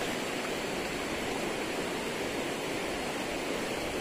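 River water rushing steadily over rocks, an even hiss-like flow.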